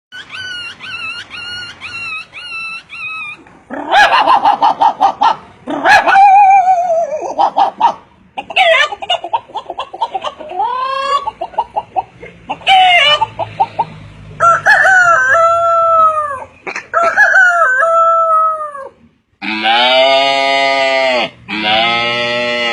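A man imitating animal and bird calls with his voice, running through several different calls in turn. It opens with a run of short repeated chirps, then fast chattering calls and sliding calls, some chicken-like, and ends with two long drawn-out calls.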